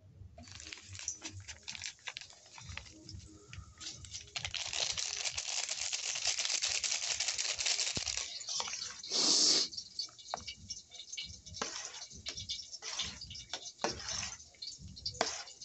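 A plastic spice packet crinkling and rustling as masala is shaken out of it, with a steady rustle for a few seconds in the middle and a short louder rustle about nine seconds in, among scattered small clicks and taps.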